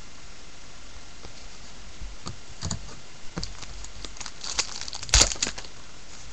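Foil wrapper of a baseball card pack crinkling and being torn open by hand: a scatter of short crackles starting about two seconds in, with one sharp, loudest tear about five seconds in.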